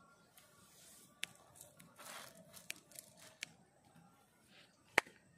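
A nylon cast net and its rope being handled and sorted out by hand: a soft rustle with a brief hiss about two seconds in and several sharp clicks, the loudest near the end.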